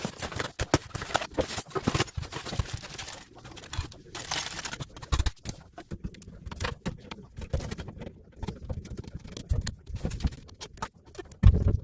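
Irregular clicks, knocks and scraping from handling garbage disposal and plumbing parts, with a heavy thump near the end.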